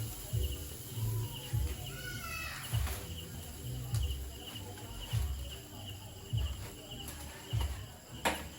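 Crickets chirping steadily in a fast, even trill, with repeated low bumps on the microphone.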